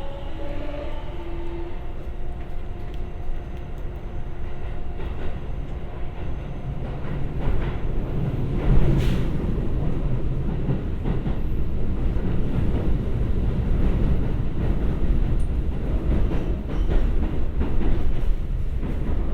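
Keikyu 1000 series electric train under way, its Siemens GTO-VVVF inverter holding a steady whine after the stepped rising 'Doremifa' tones of acceleration. The whine fades after about six seconds, leaving the rumble of traction motors and wheels on rail, with a sharp clatter over a rail joint or points about nine seconds in.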